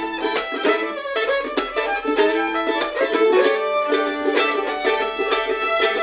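Fiddle and mandolin playing an old-time fiddle tune together: the fiddle bowing the melody over quick, steady mandolin picking.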